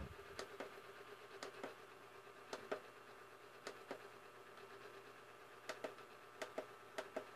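Faint clicks and taps from a handheld plastic LED wall clock, mostly in close pairs about once a second, over a low steady hum; otherwise close to silence.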